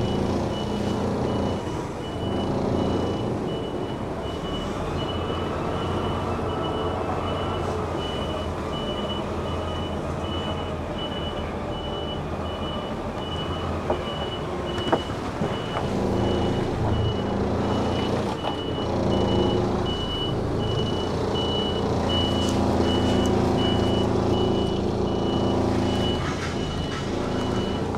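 A reversing alarm beeping in a steady, evenly spaced high tone, over a lorry's diesel engine running at low revs as it manoeuvres slowly.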